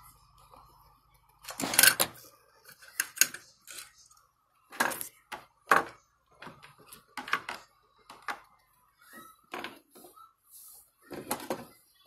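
Hard plastic toy figures being handled and set down on a desk: an irregular series of clacks and taps, the loudest about two seconds in.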